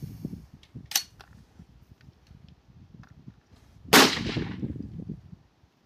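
Rifle shots on a firing line: a short, sharp crack about a second in, then a much louder shot about four seconds in whose report rings on and dies away over a second or so.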